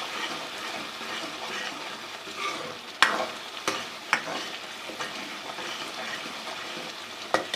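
Onion-tomato masala with freshly added ground spices sizzling in ghee in a kadai as it is stir-fried (bhuna). The stirring utensil knocks sharply against the pan a few times, about three seconds in and again near the end.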